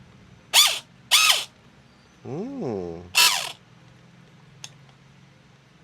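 Gel blaster's electric motor whirring in three short bursts and one longer one that rises then falls in pitch, as the trigger is pulled. The motor pinion is not meshing with the bevel gear, so the motor spins without driving the gearbox.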